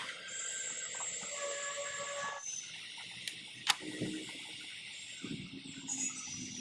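Wet laundry being shaken out and hung on a clothesline: two sharp snaps of cloth about three and a half seconds in, the second louder, then soft rustling of fabric. A faint steady high tone sounds in the background for the first two seconds or so.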